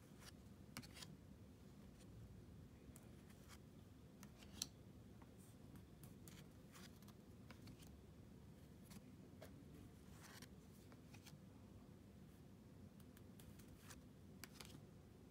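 Near silence with faint swishes and flicks of Pokémon trading cards being slid one at a time from the front of a hand-held stack to the back, with a sharper tick about four and a half seconds in.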